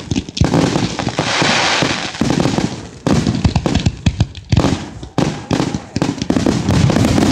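Fireworks finale: a rapid, unbroken string of shell bursts and launch thumps, with a spell of dense crackling about a second in.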